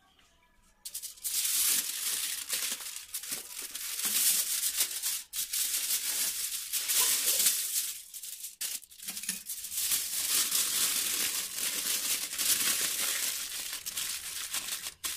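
Aluminium foil crinkling and crackling as it is folded and crumpled by hand into a parcel around a whole chicken, starting about a second in, with brief pauses near the middle.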